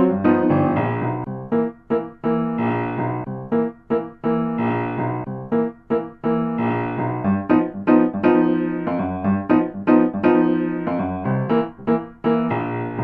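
Piano music: a melody over chords, played in phrases about two seconds long with short breaks between them.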